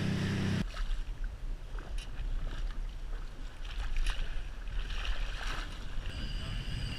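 A steady engine hum stops abruptly about half a second in. Then comes wind on the microphone and sea water moving around a boat, with a few short knocks.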